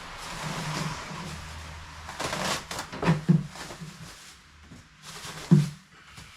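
Rustling and handling noise, with a few separate knocks and clatters.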